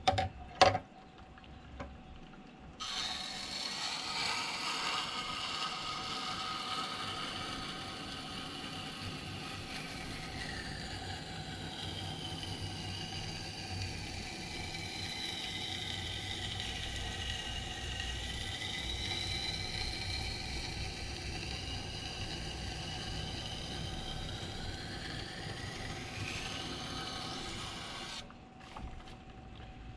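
A knife edge is ground on the rotating stone of a wet sharpening system, making a steady grinding sound. The whine in it dips and then rises as the blade is drawn along the stone. It starts about three seconds in after a couple of knocks and stops shortly before the end.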